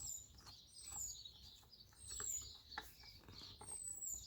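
A bird repeating a short, high, falling whistled note about once a second, with faint small clicks and taps of a screwdriver working a keyboard screw.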